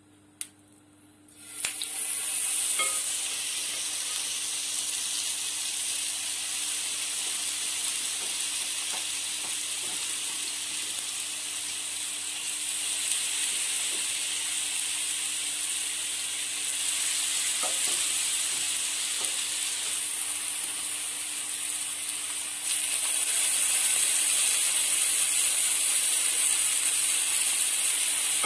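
Marinated chicken pieces coated in green hariyali paste sizzling in hot olive oil in a nonstick frying pan. The sizzle starts about two seconds in as the first pieces go into the pan, and gets louder in the last few seconds as more pieces are added.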